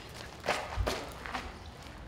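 Three quick footfalls on a run, about half a second apart, the second landing with a dull thud.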